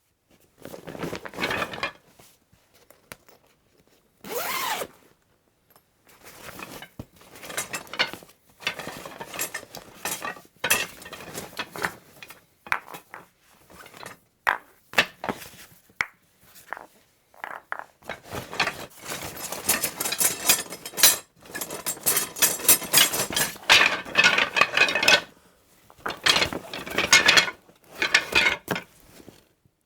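Rummaging in a croquet bag: irregular bouts of rustling, knocking and clinking of the croquet gear inside, with short pauses between, busier and more continuous in the second half.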